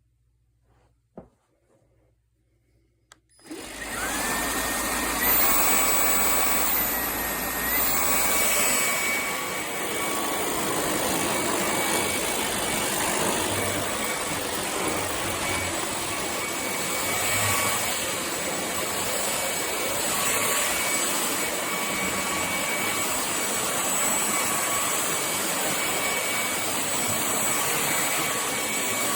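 Cordless stick vacuum cleaner (Hoover ONEPWR WindTunnel Emerge) switching on a few seconds in after faint clicks, spinning up with a short rising whine and then running steadily: a rush of air with a high motor whine.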